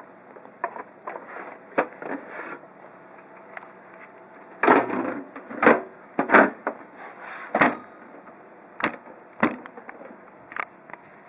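Irregular sharp clicks and knocks, about a dozen, the loudest bunched in the middle: handling noise from working with the parts of an open desktop computer case.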